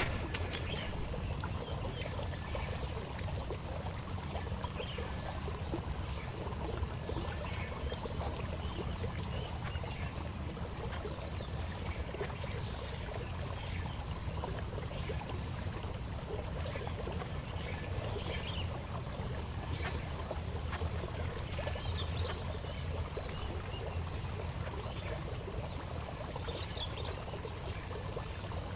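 Steady outdoor background noise: a low rumble under two thin, high, steady whines, one of which stops about eleven seconds in, with a few faint scattered ticks.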